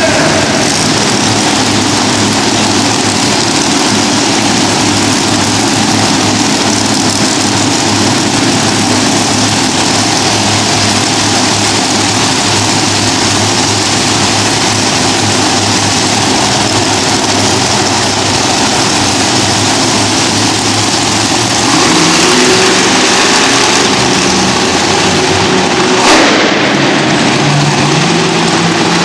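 Monster truck engines running loud and steady, with one engine revving up to a higher pitch about three-quarters of the way through. A short sharp bang comes a few seconds after.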